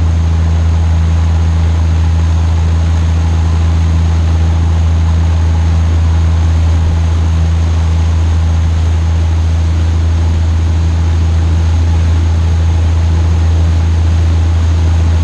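Boat engine running steadily under way, a loud, unchanging low drone, over the rushing wash of the wake churning behind the stern.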